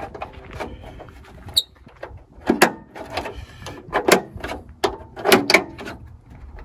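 Plastic insert panel being pried off a Jeep tailgate with a small pry bar: a string of sharp snaps and creaks of plastic, with a short high squeak about a second and a half in.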